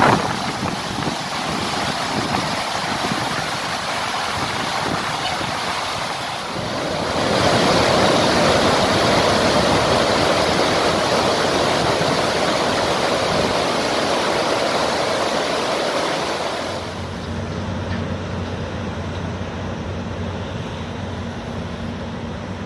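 Water rushing and churning out through the open gates of the Polavaram dam spillway: a steady, even roar that grows louder about seven seconds in. Near the end it drops away to a quieter sound with a steady low hum.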